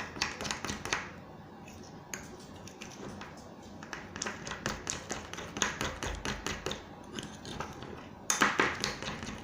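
A utensil stirring a stiff gel paste mixed with salt in a small container, with repeated clicks and scrapes against the container. A louder run of scraping comes near the end.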